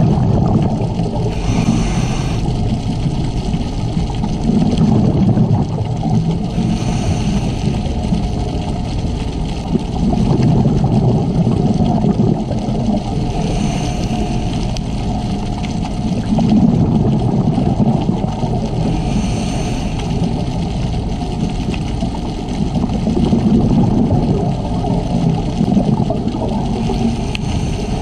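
Scuba diver's regulator breathing underwater: a short hiss on each inhale, then a longer low rumble of exhaled bubbles, about one breath every five to six seconds.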